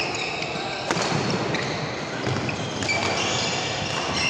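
Badminton rally: sneakers squeaking on the wooden court and a sharp racket hit on the shuttlecock about a second in, echoing in a large sports hall.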